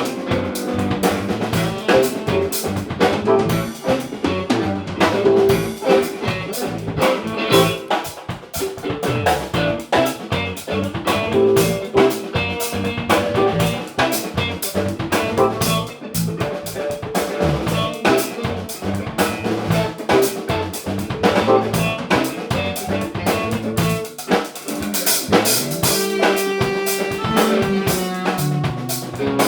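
Musicians jamming in A minor: a drum kit keeps a busy beat with rim clicks while pitched instruments play over it without a break.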